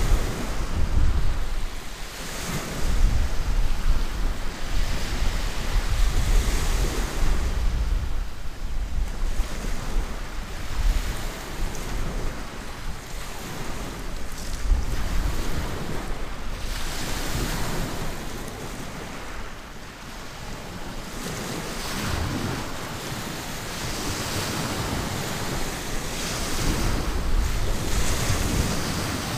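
Small sea waves breaking and washing up a pebble beach, swelling and falling every few seconds, with wind buffeting the microphone as a low rumble.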